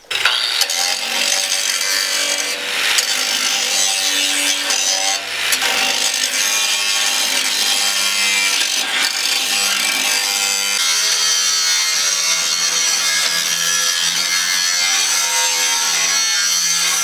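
Makita angle grinder grinding the plasma-cut edges of a steel truck bed, taking off rust: a steady high whine over the rasp of the wheel on metal.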